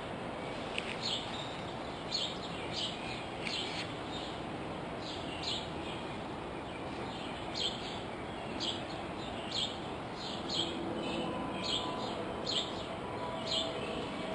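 Small songbird chirping repeatedly: short, high, downward-slurred chirps about once a second over a steady background hiss of outdoor ambience.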